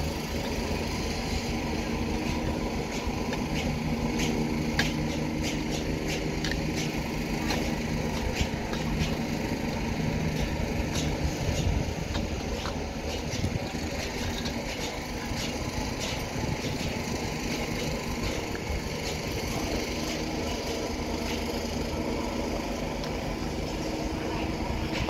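An engine running steadily, with a scattering of sharp clicks and taps over it during the first half or so.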